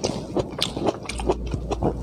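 Close-up mouth sounds of a person chewing a firm, crunchy chunk of food: quick wet clicks and crunches, several a second, with a fresh bite into the next piece near the end.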